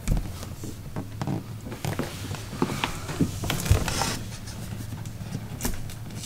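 Scattered light taps, knocks and rustles of handling as hands and camera move over a vinyl floor, with one dull low thump near the middle, over a steady low hum.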